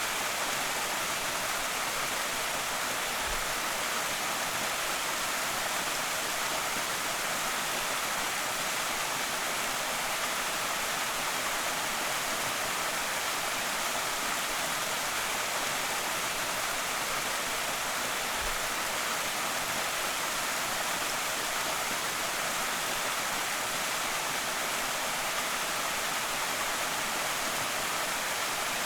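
Waterfall on a small creek: water pouring and splashing in a steady, unbroken rush with a lot of hiss in it. Two faint low thumps come through, a few seconds in and again past the middle.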